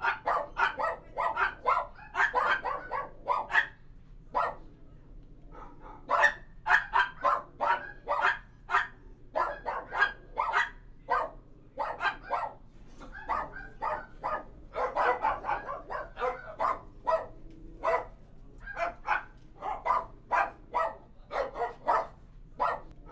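A dog barking rapidly and over and over, short sharp barks about three to four a second, in runs with a brief pause about four seconds in.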